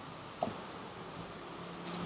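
Quiet kitchen room tone with one light knock about half a second in and a fainter tick near the end.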